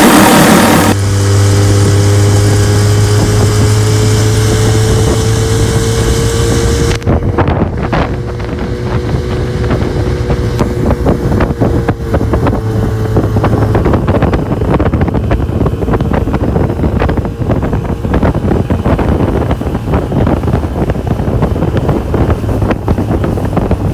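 1980 Chrysler 45 hp two-stroke outboard running steadily, pushing the boat on the lake, with heavy wind buffeting on the microphone.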